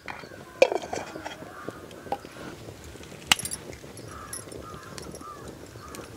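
Crows cawing in the background, with smaller birds chirping and a sharp snap about three seconds in.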